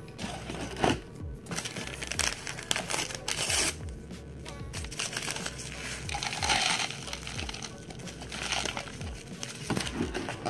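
Crackers crinkling and crunching as they are crumbled by hand into a foam cup, then a paper oatmeal packet rustling as it is emptied in, in irregular bursts. Background music plays underneath.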